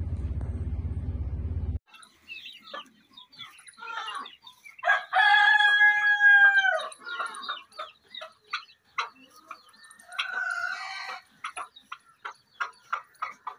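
A steady low hum that cuts off about two seconds in, then poultry calling in a pen: a long call of about two seconds that falls away at its end, a shorter call around ten seconds in, and quick short peeps, several a second, near the end.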